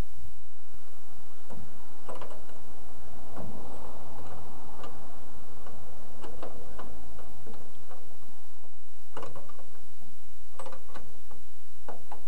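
Irregular metallic clicks and taps of a flare nut wrench and an open-end wrench working a fuel line fitting loose at a fuel filter, with a soft rustle in the middle.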